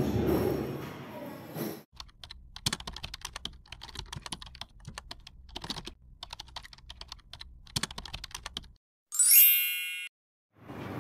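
Music fades out, then rapid, irregular keyboard-typing clicks run for about seven seconds, followed by a short, bright chime that steps down in pitch and dies away within a second.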